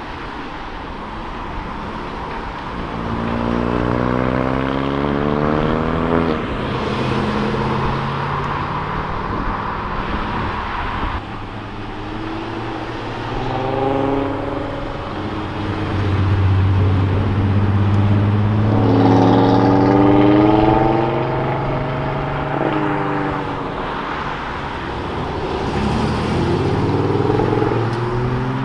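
Cars accelerating away one after another, each engine rising in pitch as it revs up through the gears, over steady road and tyre noise.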